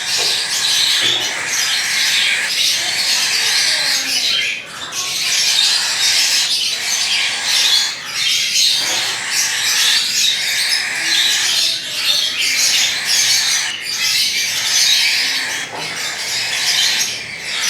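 Young hand-fed cockatiel chicks squawking near-continuously with harsh, rasping calls, with only brief breaks.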